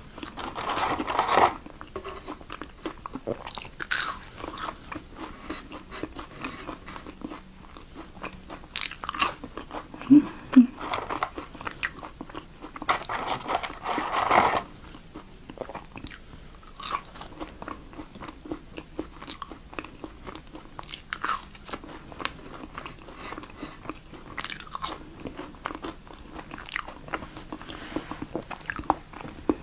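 Close-miked eating: crunchy bites and chewing with many small mouth clicks. Two louder, longer crunching stretches come about a second in and again around the middle.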